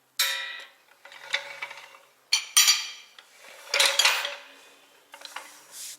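Metal objects being handled: three sharp clanks that ring on, the first just after the start, then about two and a half and four seconds in, followed by a softer metallic scrape near the end.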